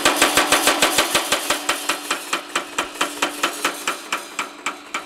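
Baileigh MH-19 variable-speed power hammer running: its ram hammers in rapid, even strokes over a steady motor hum. The strokes slow from about seven a second to about four as the speed potentiometer is turned down, then die out near the end.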